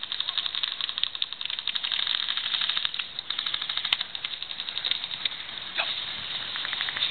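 Airsoft guns firing full-auto in long rapid bursts: a fast rattle of sharp clicks, about a dozen a second, with a couple of short breaks between bursts.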